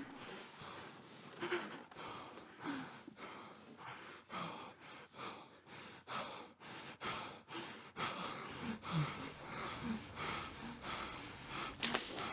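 A person's heavy, uneven breathing and gasps, in short irregular breaths.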